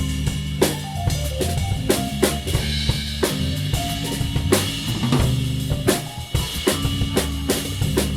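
Live band playing an instrumental passage: a drum kit keeps a steady beat of snare and bass-drum hits under held low bass notes and a shifting melodic line.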